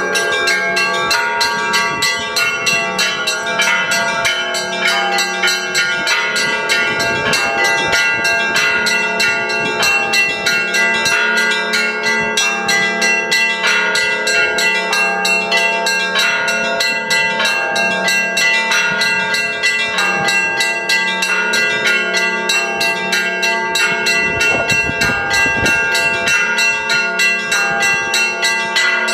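Church bells of many different pitches struck in a rapid, continuous peal, the ringing tones overlapping and sustained.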